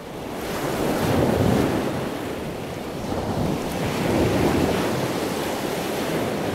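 Ocean waves: a steady rushing wash of surf that swells up twice and eases back.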